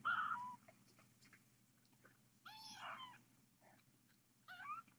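Newborn kittens mewing: three short, faint mews, one right at the start, one around the middle and one near the end.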